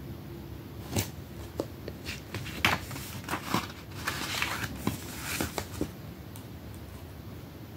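Handling of an open plastic DVD case: a run of sharp clicks and knocks of the plastic, then the rustle of the glossy paper insert being slid out of its clip, from about one second in to about six seconds in.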